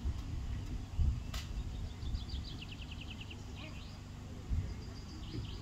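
Wind rumbling on the microphone in an open field, with a small bird's quick trill of rapid, slightly falling chirps a couple of seconds in and again near the end, and one sharp click about a second and a half in.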